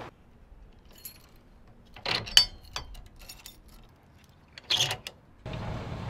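Steel trailer safety chains and hitch hardware clinking and rattling in a few short metallic clatters, the loudest about two seconds in and another just before five seconds. A steady rush of background noise comes in near the end.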